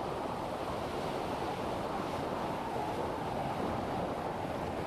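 Steady wind and water noise, an even wash with wind on the microphone and no distinct events.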